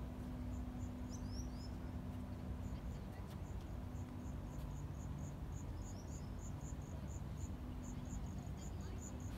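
A cricket chirping in an even series of short, high chirps, about three or four a second, becoming steady a few seconds in, over a low rumble and faint hum.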